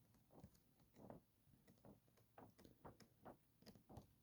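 Near silence: quiet room tone with faint scattered clicks and rustles.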